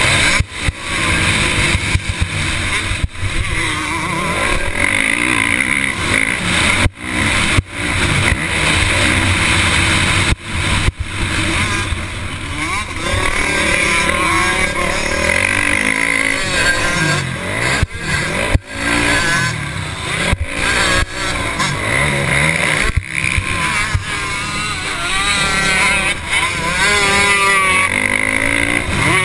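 Motocross bike's engine heard from a camera on the bike, revving up and down repeatedly as it races round the track, its pitch rising and falling again and again.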